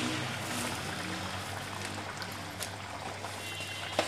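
Chicken and pea curry broth boiling in a steel pot: a steady bubbling with small pops, and a single clink of the ladle against the pot near the end.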